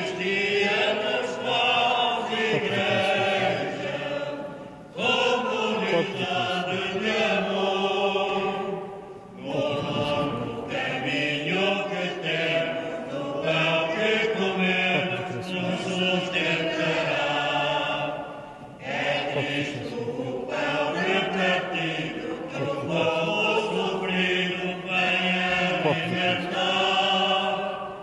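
Church choir singing a communion hymn in long sung phrases, broken by short pauses about 5, 9 and 18 seconds in.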